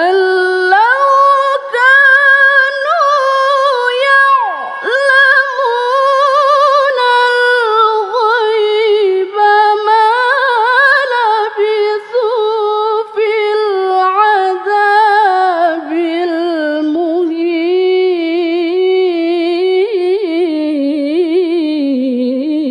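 A woman reciting the Quran in melodic tilawah style, drawing out a long sung phrase with rapid warbling ornaments. Her voice moves slowly across the phrase and settles lower near the end, closing the recitation.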